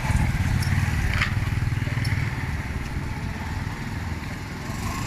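A steady low rumble of a running motor vehicle engine.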